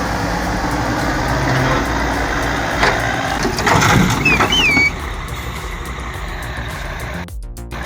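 Wood chipper running, its engine and cutters making a loud, steady machine noise with a harder burst of knocking and crunching about three to five seconds in, joined by a short squeal that slides in pitch. It then settles to a quieter, steady run.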